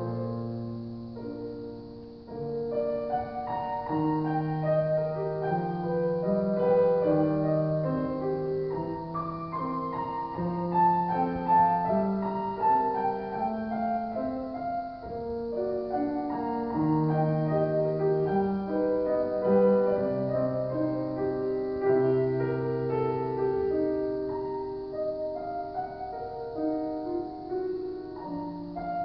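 A solo grand piano playing a slow classical piece, a singing melody over sustained lower accompaniment, briefly softer about two seconds in.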